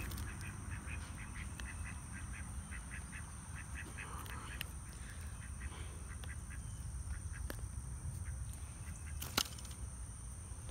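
Ducks quacking in a quick run of short calls, which die away about six seconds in; a sharp click near the end.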